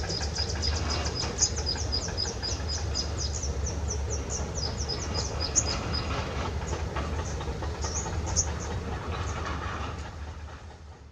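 Kubota M9540 tractors' four-cylinder diesel engines running steadily while working a field with disc ploughs, a low rumble throughout. Over it, a rapid series of high chirps, about eight to ten a second, thins out after about six seconds; everything fades out near the end.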